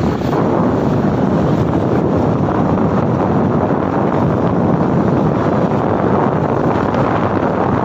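Steady wind rushing over the microphone of a moving two-wheeler, mixed with road noise of the ride.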